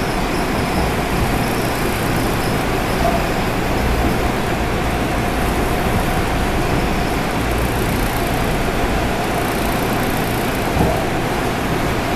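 Seoul Subway Line 7 train running at speed through a tunnel, heard from inside the car: a steady rolling rumble of wheels and car body with a thin steady tone above it.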